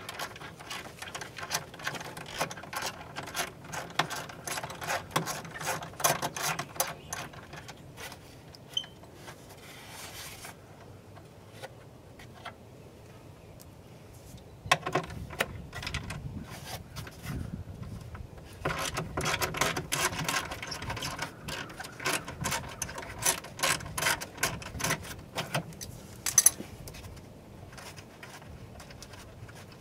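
Ratchet wrench clicking in rapid runs, with pauses between, as 10 mm bolts holding a car door's side airbag module are loosened.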